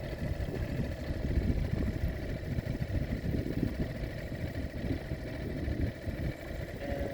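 Wind buffeting the microphone with an irregular low rumble, over the steady drone of a small boat motor running at trolling speed.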